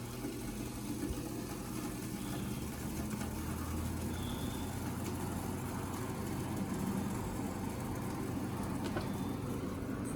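Window air conditioner running with a steady low mechanical hum.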